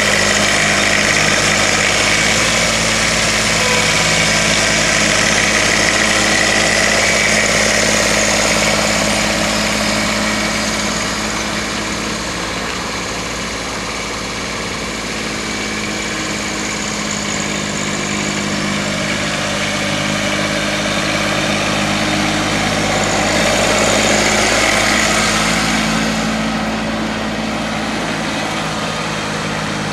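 Kubota three-cylinder diesel engine of a compact tractor running steadily at idle, its level dipping a little midway and rising again near the end.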